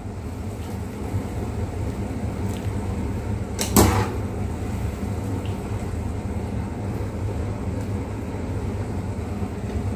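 Wire mesh skimmer scooping boiled sausage slices out of a nonstick pan and into a bowl, over a steady low hum, with one sharp knock about four seconds in.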